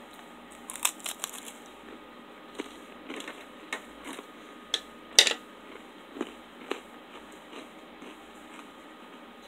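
Crinkling and clicking of plastic ration peanut butter pouches being handled and set down on a plate: a dozen or so scattered sharp crackles, the loudest about five seconds in.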